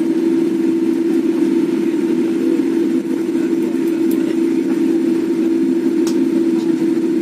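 Steady drone of a jet airliner's engines heard inside the cabin from a window seat, while the plane rolls along the ground.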